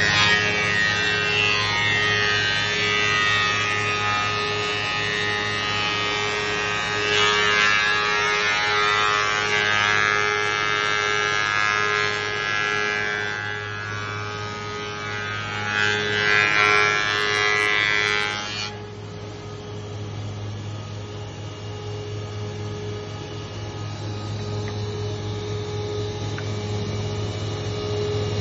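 Beaver 415 four-sided planer-moulder running, its spinning cutter heads giving a steady multi-tone whine over a low motor hum. It is louder and harsher while a board is being planed, then settles to a quieter idle run about two-thirds of the way in, once the board has passed through.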